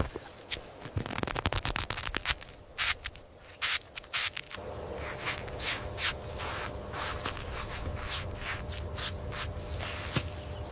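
Eggshell cracking as a chick hatches: a run of small, sharp clicks, crackles and scrapes, with a faint steady hum underneath from about halfway through.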